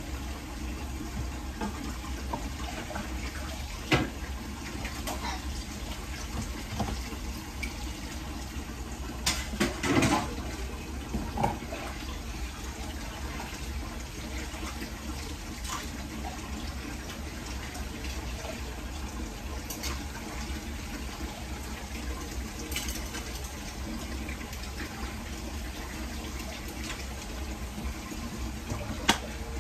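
Saucepan of black beans boiling on the stove, a steady bubbling hiss, with a few short clinks and knocks of kitchen utensils, the loudest about ten seconds in and again near the end.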